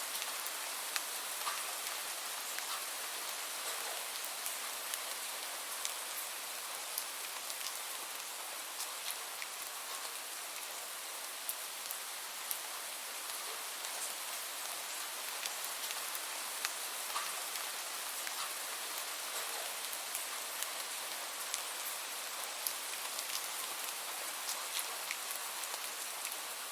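Steady rain falling on a surface, an even hiss with many individual drops ticking sharply through it.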